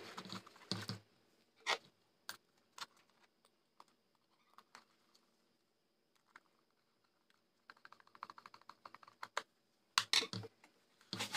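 Hand screwdriver driving a small screw through an LED board into a plastic lamp housing: scattered sharp clicks and taps, a quick run of small clicks about eight seconds in, and a few louder knocks near the end.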